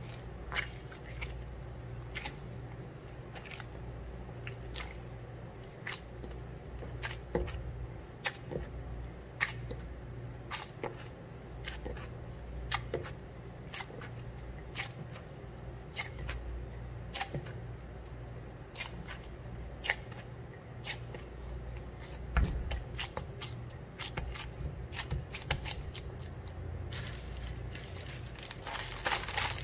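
Hand-kneading a stiff glutinous rice flour dough in a stainless steel bowl with gloved hands: irregular soft squishes and sharp little clicks as the crumbly dough is pressed and worked together against the bowl, over a steady low hum.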